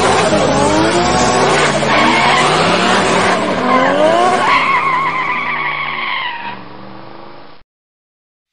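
Car doing a burnout: the tyre squeals as it spins in place over the engine's revving, the squeal wavering up and down in pitch. It fades in the last couple of seconds and stops abruptly about a second before the end.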